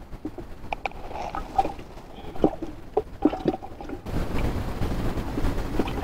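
Small clicks and rustles of hands handling a fishing line and hook close to the microphone while baiting it. About four seconds in, a steady rushing noise comes in abruptly.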